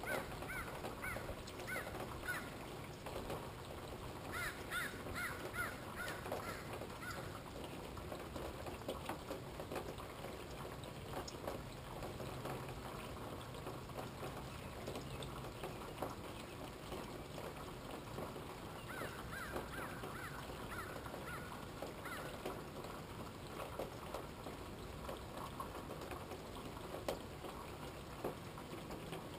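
Steady rain falling, a dense patter of drops. Runs of short pitched calls, a few to the second, sound over it near the start, about a third of the way in, and again past the middle.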